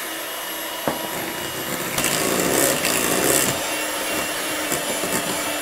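Electric hand mixer running steadily, its twin beaters whirring through thick cupcake batter in a glass bowl as the last of the flour is beaten in. It gets louder for a second or two about two seconds in, with a single click about a second in.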